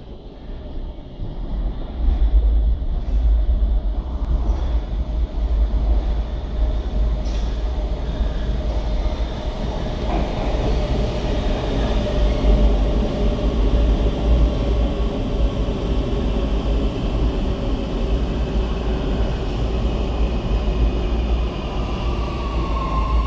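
MX3000 metro train running through the station: a loud, steady rumble that builds in over the first two seconds, with electric motor whine on top and a new rising whine near the end.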